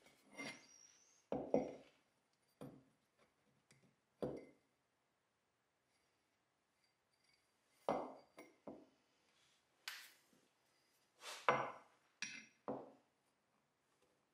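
Rotatape measuring wheel's metal wheel disc being handled, turned over and set down on a wooden workbench: about ten separate short knocks and clinks with quiet between them.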